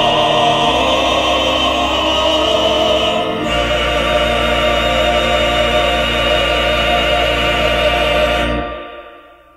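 Male vocal quartet with organ holding the final chords of a hymn. The chord changes about three and a half seconds in; the last chord is held, stops near the end and dies away.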